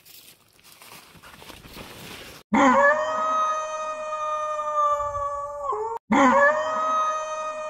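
Faint rustling, then about two and a half seconds in a loud end-card sound effect: a long call held at one pitch for about three seconds that drops away at its end, played twice back to back.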